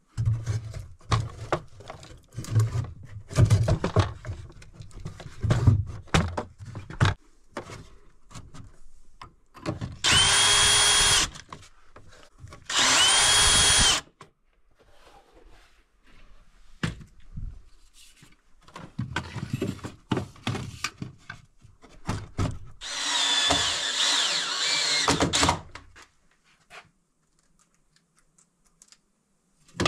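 Cordless drill-driver driving screws through a metal angle bracket into wooden framing: two short, steady runs of about a second each, then a longer run with a wavering pitch. Knocks and clatter of timber being handled come before and between the runs.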